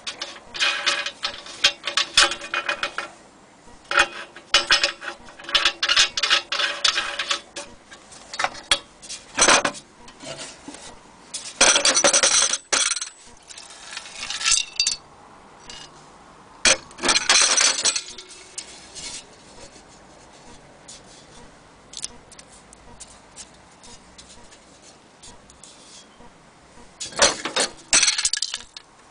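Metal parts of an old military stove clinking and clanking as they are handled, in several spells of rattling, some with a short metallic ring, and quiet gaps between them.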